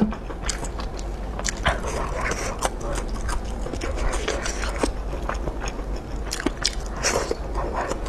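Close-miked biting and chewing of a grilled sausage, a run of short wet mouth clicks and smacks.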